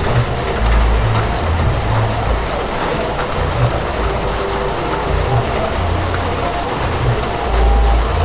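Heavy rain falling steadily, a dense even hiss, over an uneven low rumble that swells about a second in and again near the end.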